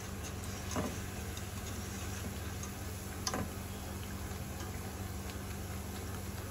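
Hot oil sizzling and bubbling in an iron karahi as pakoras deep-fry and are scooped out with a wire-mesh skimmer, with two short clinks of the skimmer against the pan, about a second in and about three seconds in.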